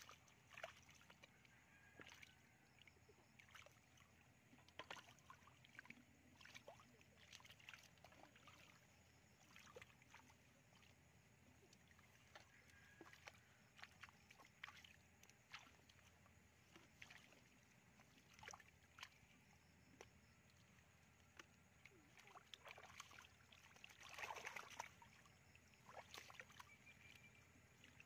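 Faint, irregular splashing and sloshing of hands and wriggling fish in shallow muddy water as fish are grabbed by hand, with a louder flurry of splashes near the end.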